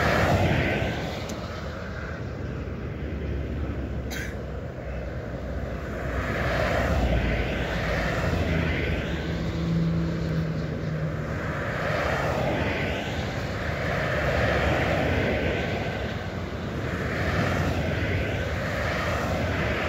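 Motorway traffic: cars passing at speed one after another, each a rush of tyre and engine noise that swells and fades, over a steady hum of more distant traffic. A car passes close right at the start, and a brief click sounds about four seconds in.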